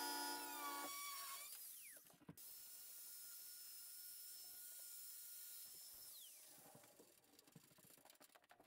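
A corded angle grinder whines faintly at the bolt holes in steel bed mounts. Its whine falls away as it spins down about a second in. It runs again with a steady thin whine and spins down once more after about six seconds.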